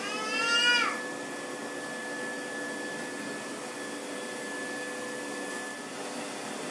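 Vacuum cleaner running steadily with a constant whine. A cat meows once in the first second, a single loud call that drops in pitch at the end.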